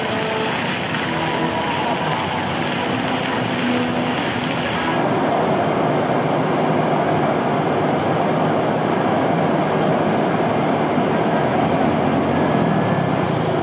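Steady outdoor city background noise with a low traffic rumble. About five seconds in the sound changes abruptly and the high hiss drops away, leaving a duller, steady rumble.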